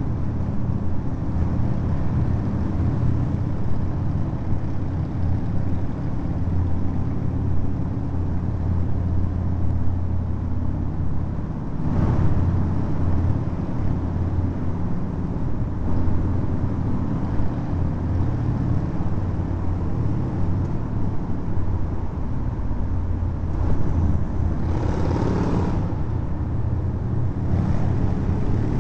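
Harley-Davidson V-twin motorcycle engine running steadily at cruising speed inside a road tunnel, with other motorcycles and traffic around it. A brief sharp noise about twelve seconds in, and a louder swell of another engine near the end.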